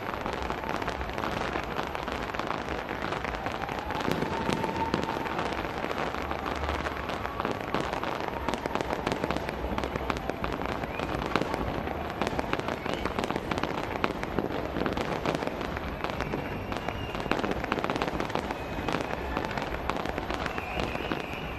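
Fireworks display: a dense, continuous crackling and popping of bursting shells, with some low rumble underneath.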